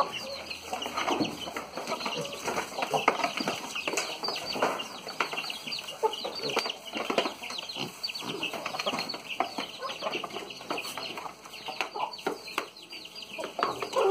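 Chickens and piglets feeding together at a trough: a dense, irregular patter of pecks and chomps, with hens clucking.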